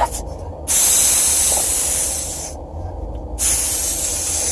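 Spray hissing in two long bursts of about two seconds each, with a short pause between.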